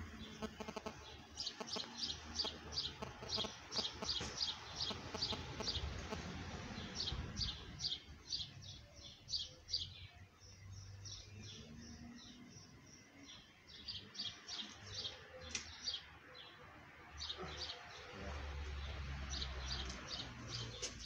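Small songbird chirping outdoors: fast runs of short, high chirps, about four or five a second, coming in bursts of a few seconds with short pauses. Under it, a soft rustle of nylon tent fabric being handled.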